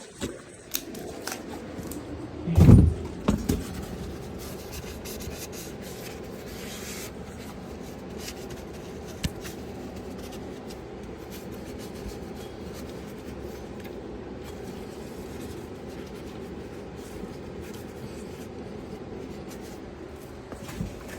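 Hand tools and brake parts being handled: light scraping and clicking, with one heavy thump and a couple of smaller knocks about three seconds in, over a steady low hum.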